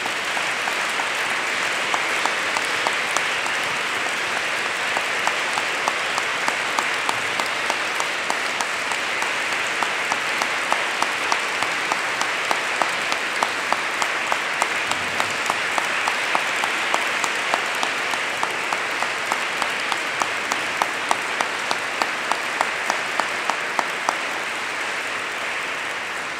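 Audience applauding in a large hall, with sharp claps standing out in an even rhythm of about two or three a second; it eases off near the end.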